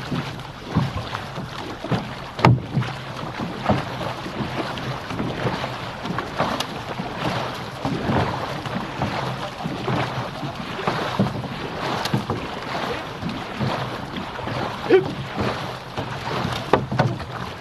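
Paddle blades of an OC6 outrigger canoe crew catching and splashing in the water roughly once a second, over water rushing along the hull and some wind on the microphone.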